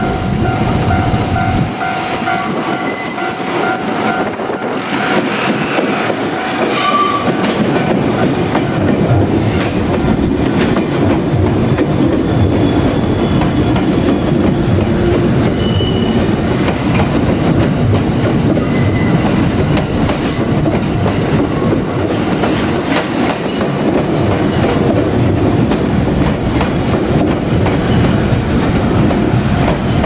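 A JR Kyushu 787 series electric train, the '36ぷらす3' set, rolling past at low speed. Its wheels clatter over rail joints and points in a steady running noise. Brief high wheel squeals come here and there.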